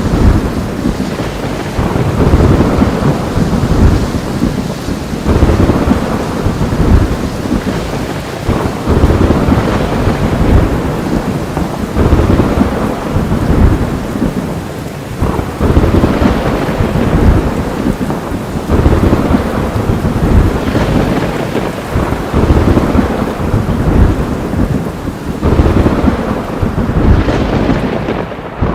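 Heavy rain pouring, with rolling thunder that swells and fades every couple of seconds.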